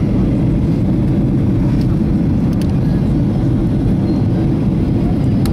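Steady airliner cabin noise during the descent to land: a constant deep rumble of engine and airflow heard inside the passenger cabin, with no rise or fall.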